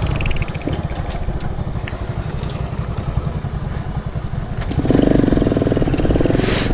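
Honda Pop 110i's single-cylinder four-stroke engine, fitted with a tin aftermarket exhaust, running steadily at low revs while riding, then growing louder as the throttle opens about five seconds in. A brief hiss comes near the end.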